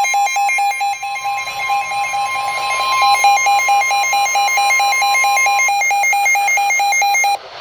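Emergency alert attention signal: a loud, fast-pulsing electronic beep with a steady higher tone under it. The steady tone stops about three-quarters of the way through, and the beeping then cuts off abruptly just before the end. It marks the start of a new weather warning.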